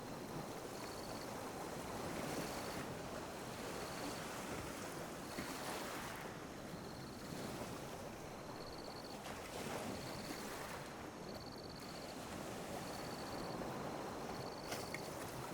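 Ocean waves lapping on a beach: a steady wash of surf that swells and eases every few seconds. A faint high chirp repeats about once a second throughout.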